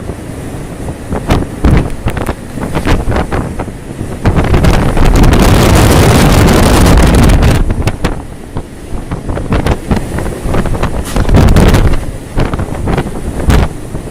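Storm wind buffeting the microphone aboard a boat at sea, with waves and spray, in gusts. A long, loud rush from about four to eight seconds in.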